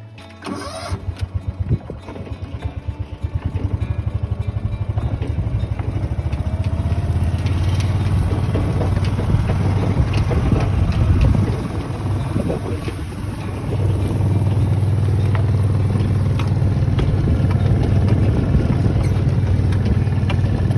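A vehicle engine starts about half a second in, runs with an uneven, pulsing beat for a few seconds, then settles into a steady run; it drops briefly near the middle and comes back up.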